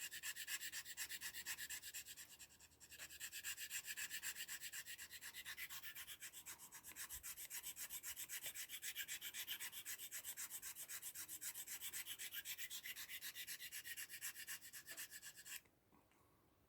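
Victorinox pocketknife blade being stroked over a handheld knife sharpener: a quick, even metal-on-abrasive scraping, about four strokes a second, with a short break a little over two seconds in. It stops suddenly near the end.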